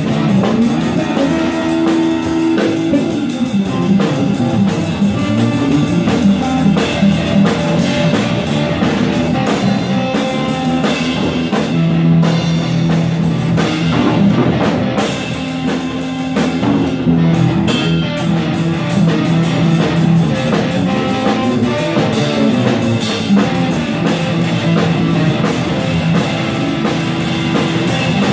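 Live rock music played on a drum kit with a guitar, the drums and guitar going together without a break.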